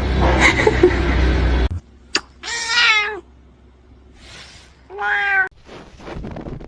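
A cat meows twice, two short drawn-out meows about two and a half seconds apart. They follow a louder stretch of mixed noise in the first couple of seconds.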